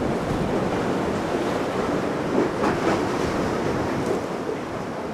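Wind buffeting the microphone over choppy channel water, with waves washing and splashing and a few louder surges about halfway through.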